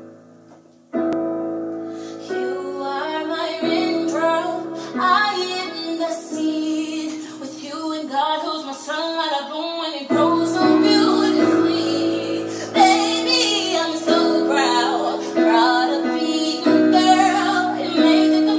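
A woman singing a slow melody with vibrato over sustained keyboard chords. The music starts after a brief pause about a second in.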